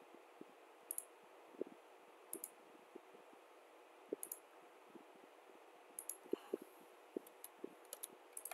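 Computer mouse clicking, single sharp clicks every second or two and more often in the last few seconds, as the points of a sketch line are placed. A faint steady hum runs underneath.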